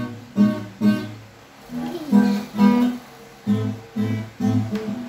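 Background music: an acoustic guitar picking and strumming a gentle run of notes and chords.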